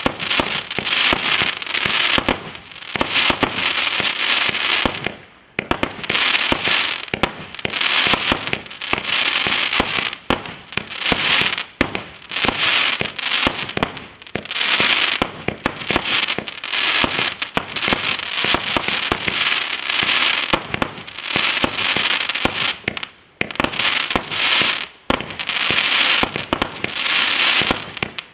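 A 160-shot 20 mm firework barrage cake firing a fast run of crackling bombettes. Dense crackling swells every two seconds or so as each burst goes off, with a short lull about five seconds in and another a few seconds before the end.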